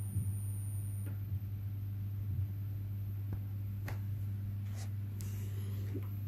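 Stepper motor energized by a magnetic loop controller board, giving a steady low hum, with a few short buzzes in the first seconds and some sharp clicks later as it steps to the rotary encoder.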